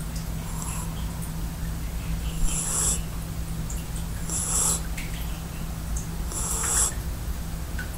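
A four-month-old Belgian crossbreed puppy snoring in its sleep: four short, hissy snores, one about every two seconds.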